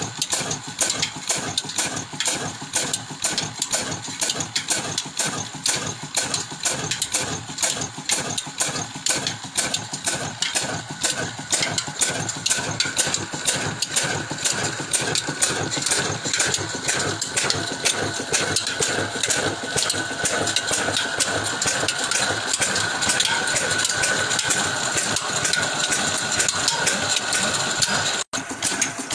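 Old horizontal stationary diesel engine with heavy flywheels running steadily with an even, fast beat while it belt-drives a pulley shaft. A steady high whine grows louder in the second half.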